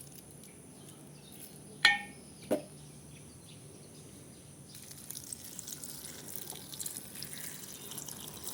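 A utensil clinks sharply twice against a cooking pot about two seconds in, the first clink briefly ringing. From about halfway comes a faint crackling of liquid simmering: grasshoppers cooking in bamboo-shoot water.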